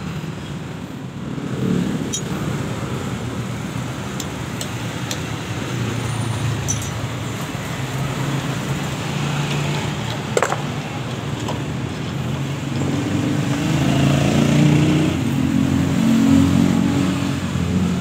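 Background road traffic: motor vehicle engines running and passing, the rumble swelling louder toward the end. A sharp click about ten seconds in.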